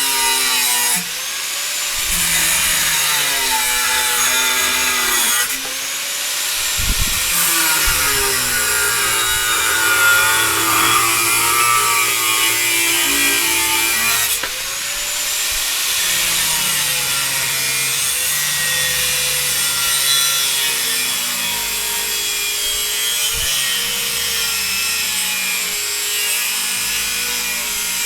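AVID Power 4-1/2 inch, 7.5-amp angle grinder with a cut-off wheel cutting through a steel lawnmower blade: a loud, continuous grinding with the motor's whine shifting in pitch as the load changes. It eases off briefly a few times, about a second in, around five seconds in and around fourteen seconds in.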